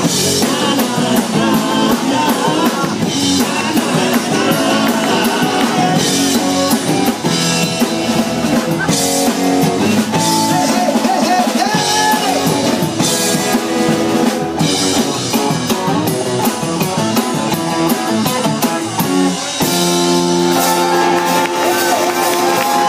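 Live rock band playing: electric guitars, bass and a drum kit with cymbal crashes. Near the end the playing gives way to a long held chord.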